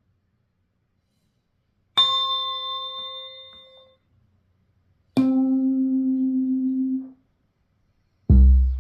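One-shot sample previews from the Drift Theory lo-fi expansion for Maschine, played one after another with silence between them. First comes a struck, ringing note about two seconds in that fades out over a couple of seconds. Then a steady held note of about two seconds stops abruptly, and a deep bass note hits near the end.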